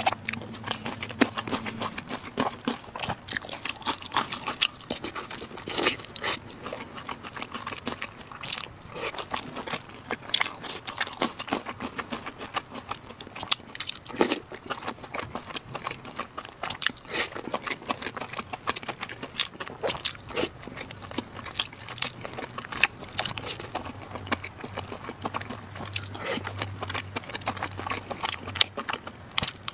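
A person chewing and biting food close to a clip-on microphone: a dense, irregular run of quick mouth clicks.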